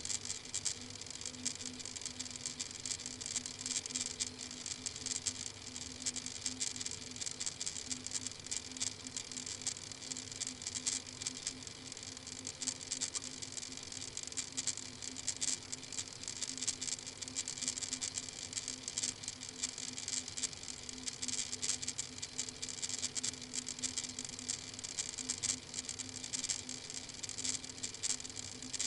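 Steady hiss with constant fine crackling over a low electrical hum from a nest-box webcam's microphone, with no distinct event.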